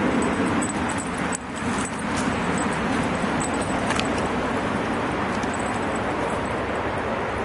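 Steady rushing noise with scattered faint clicks and scratches, dipping briefly about one and a half seconds in.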